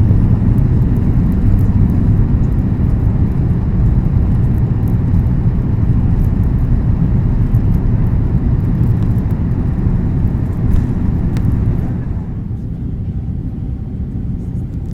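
Airliner cabin noise: a loud, steady low rumble of jet engines and rushing air that eases somewhat about twelve seconds in.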